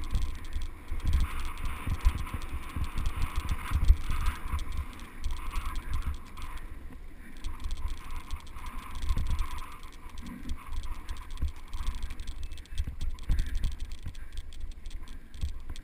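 Mountain bike ridden along a bumpy dirt singletrack: irregular rattles and knocks from the bike over the ruts, with tyre noise and a low rumble of wind on a GoPro's microphone.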